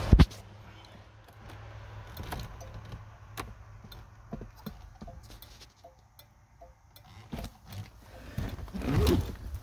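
A loud knock right at the start, then scattered small clicks, rattles and rustling from someone moving about inside a car cabin, with a short rising-and-falling voice-like sound near the end.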